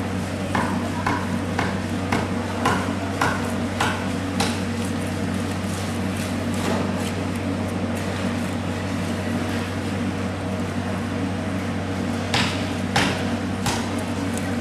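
A knife clacking against a plastic cutting board as a large fish is filleted, sharp taps about twice a second at first, then fewer, with a short cluster near the end. A steady low machine hum runs underneath.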